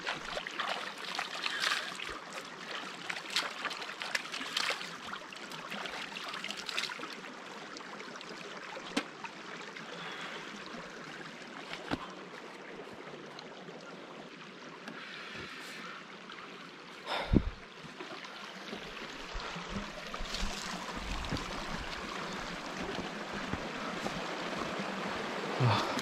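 Stream water running over rocks: a steady rushing flow, with a brief thump about seventeen seconds in.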